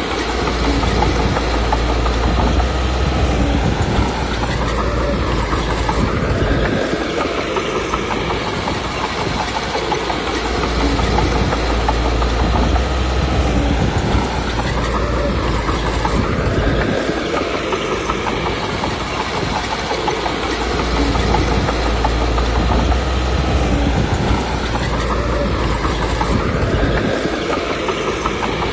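Komatsu D21P crawler bulldozer working: its diesel engine runs under load while its steel tracks clatter. The work comes in repeating cycles about every ten seconds, with the engine note rising and falling between heavy stretches.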